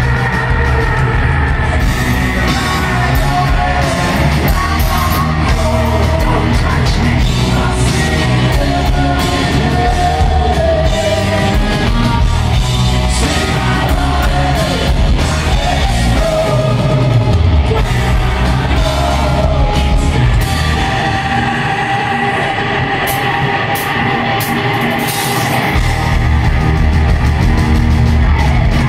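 A hard rock band playing live with a male lead vocal, recorded from the audience in an arena hall. The low end drops out for a few seconds near the end before the full band comes back in.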